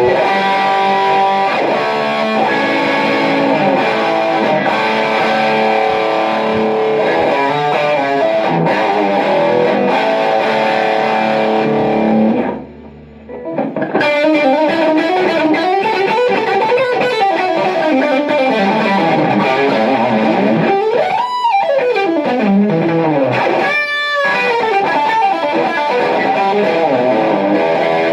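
Electric guitar played through distortion and effects pedals: held, ringing chords, a brief break just before halfway, then a passage of notes that slide up and down in pitch.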